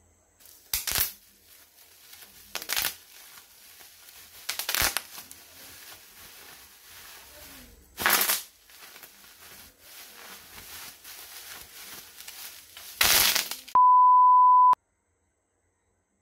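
Bubble wrap being crinkled and squeezed by hand, with five louder crackling bursts spread through it. Near the end the crinkling stops and a steady single-pitched electronic beep sounds for about a second.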